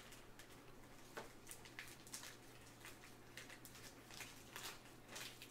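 Faint, irregular light ticks and slides of trading cards being flipped off a stack one by one in gloved hands, over a low steady room hum.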